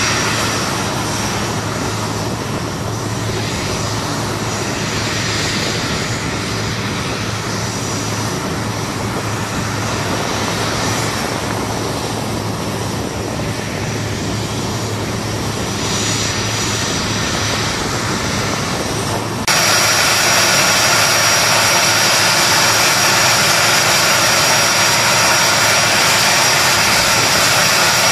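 Steady jet turbine noise, a low hum under a high whine. About two-thirds through it cuts abruptly to a louder, hissier steady whine.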